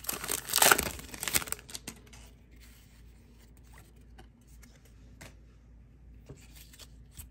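Trading-card pack's foil wrapper tearing open and crinkling for about the first second and a half, then quiet apart from a few faint clicks of cards being handled.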